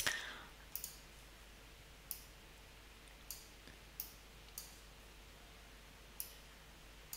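Computer mouse button clicking as points on a drawing are selected and dragged: about eight short, sharp single clicks at irregular intervals, the first the loudest.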